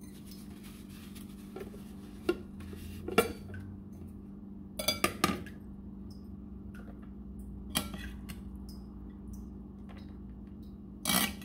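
A metal spoon clinking against a glass bowl and a ceramic plate while salad is scooped and served: a few sharp clinks, with a quick cluster about five seconds in. A low steady hum runs underneath.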